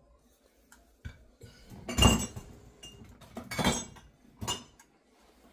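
Clinks and knocks against a stainless steel mixing bowl: a few faint taps, then three louder clinks that ring briefly, the loudest about two seconds in.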